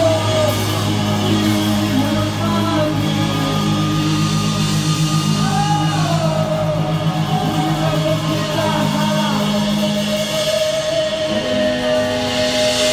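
Hardcore punk band playing live and loud, with sung vocals over held bass notes, guitars and drums, heard in a large hall.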